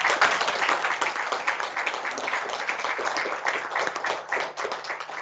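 A small audience applauding, loudest at first and slowly tapering off.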